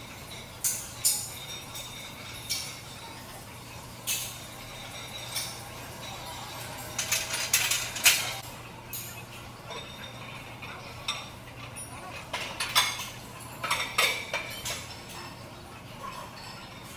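Scattered metallic clinks and clanks of gym weight plates and barbells, some single, some in quick clusters, over a steady low hum.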